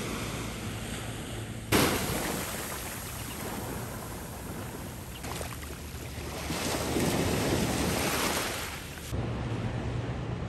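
Small ocean waves washing on a beach, with wind on the microphone; the surf swells louder for about two seconds in the second half, and the sound jumps abruptly about two seconds in and near the end.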